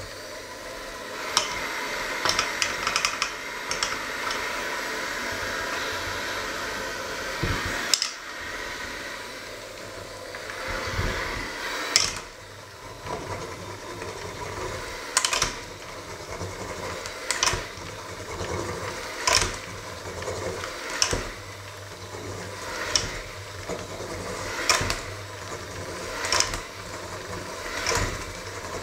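Handheld electric mixer running steadily as it works a stiff dough, with sharp knocks as it strikes the stainless steel bowl. The knocks come irregularly at first, then about every two seconds in the second half.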